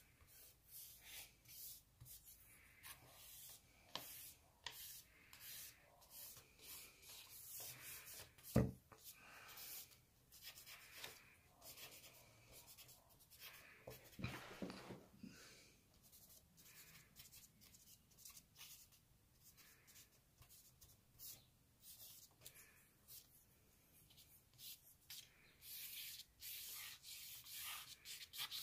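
Faint scratching of a charcoal stick on paper and fingers rubbing charcoal into a sketchbook page, in short strokes, with a longer scrape about halfway through. A single knock stands out about a third of the way in.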